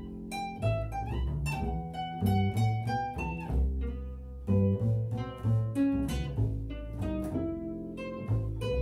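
Classical guitar and double bass playing a duet: quick plucked guitar notes over plucked (pizzicato) bass notes.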